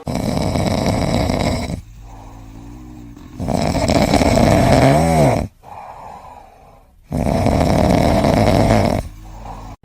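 A pet snoring loudly: three long snores about three and a half seconds apart, with quieter breaths between them.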